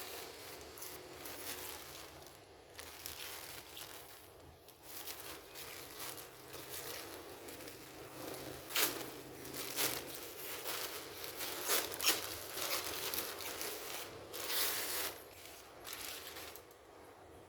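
Packaging being handled, rustling and crinkling irregularly, with a few sharper crackles in the second half.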